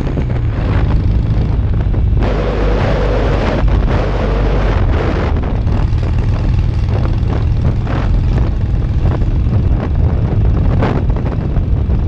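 Harley-Davidson V-twin engine running steadily while the motorcycle rides along, with wind buffeting the camera microphone throughout.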